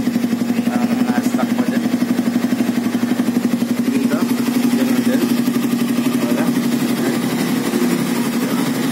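Suzuki Raider 150's single-cylinder four-stroke engine idling through a big-elbow header pipe and a stock canister muffler with its inner screen gouged out, a steady pulsing exhaust note. It gets slightly louder about four seconds in. At idle the modification has made almost no difference to the sound.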